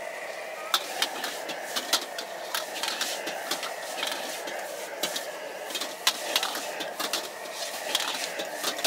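Metal ladle clanking and scraping against a wok in quick, irregular strokes as egg noodles are stir-fried, over the steady rushing of a high-flame gas wok burner.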